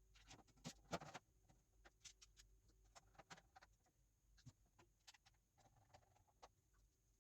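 Faint, irregular small clicks and taps, a few close together around the first second and then scattered every half second or so, over a faint steady hum.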